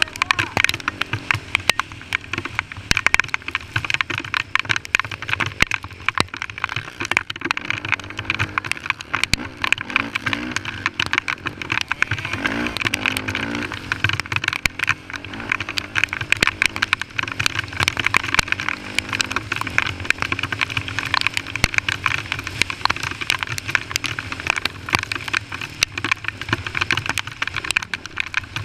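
Honda TRX450R quad's single-cylinder four-stroke engine running on a dirt trail, its pitch rising and falling as the throttle is worked, most plainly about ten to thirteen seconds in. Dense crackling clicks run over it throughout.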